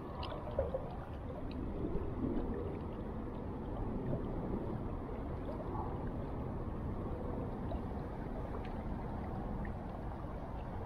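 River current flowing and gurgling in a steady rush of water, with a few faint ticks scattered through it.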